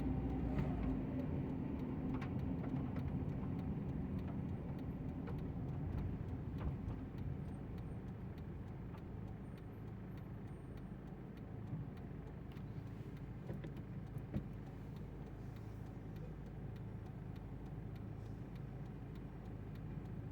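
Steady low rumble of motor-vehicle engines, louder for the first few seconds and then settling lower, with a few sharp clicks scattered through.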